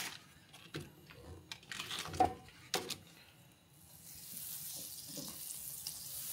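Butter starting to sizzle in a hot pan about four seconds in, a steady hiss that grows louder. Before it come a few light clicks and knocks of utensils and cookware.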